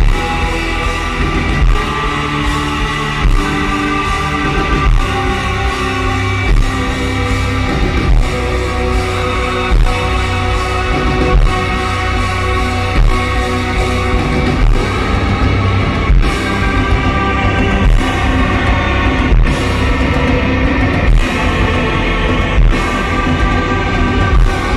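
Live band playing loud, heavy post-rock: sustained, layered guitar and string tones over a slow beat, with a heavy hit about every one and a half seconds.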